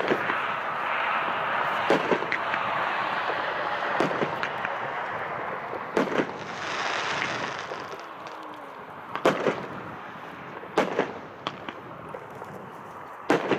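Consumer fireworks cake (1.4G) firing: sharp bangs about every two seconds over a steady rushing hiss that fades after about eight seconds, with a few more bangs later on.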